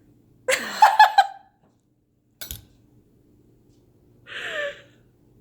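A woman laughing in a short run of pulsing bursts, followed by a single sharp click about two and a half seconds in and a brief breathy laugh near the end.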